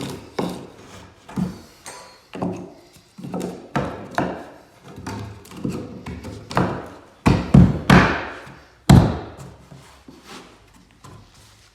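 Repeated knocks and thuds of pine floorboard wood being handled and tapped, about one or two a second, the heaviest few about two-thirds of the way in.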